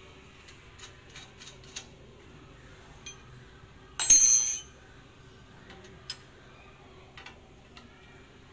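Small metal clicks and taps of a wrench working a bolt on the steel mast of a pallet stacker. About four seconds in comes one loud, short, ringing clink of steel on steel.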